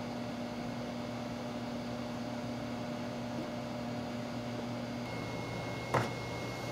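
Steady room tone: a low electrical hum with a fan-like hiss. A single short click comes near the end.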